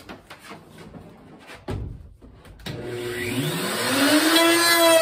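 A few clicks and knocks, then a handheld electric wood router is switched on about two-thirds of the way in. Its motor whine climbs steadily in pitch and loudness as it spins up to cutting speed.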